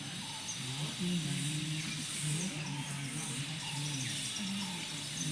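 Several low voices overlapping at once, some holding a note, with small birds chirping.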